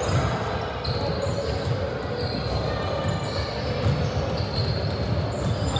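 Basketball game sounds in a large gym: a ball bouncing on the hardwood court, sneakers giving short high squeaks, and distant voices echoing around the hall.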